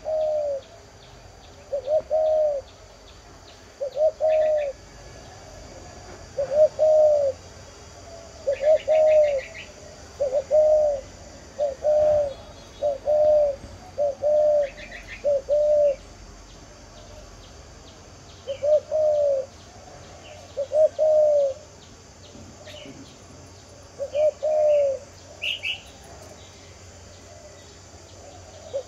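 Spotted dove cooing: a long run of low, arched coo notes in twos and threes every second or two, with a longer pause past the middle, in the call style Vietnamese keepers call 'đồng diều'. Faint, higher chirps of small birds come in between.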